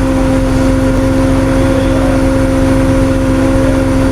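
A vehicle engine running steadily, with a constant whine held at one pitch over a low rumble.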